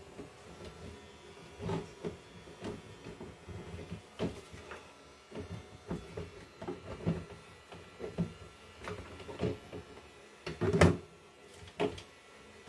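Irregular knocks, clunks and scrapes of a flat-pack clothes cabinet's panels and shelf being handled and fitted during assembly, with one louder thump near the end.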